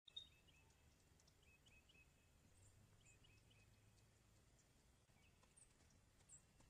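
Near silence: faint outdoor ambience with a few faint, short bird chirps in the first few seconds, and a brief click at the very start.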